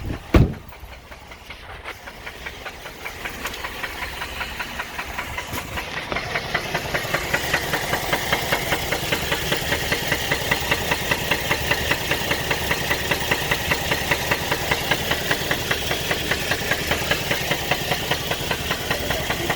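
GM 3.6 L LLT V6 engine of a 2010 Buick Enclave running with a loud, rhythmic knock that grows louder over the first several seconds and then holds steady; the knock came on after the engine overheated and shut down. A single sharp thump sounds about half a second in.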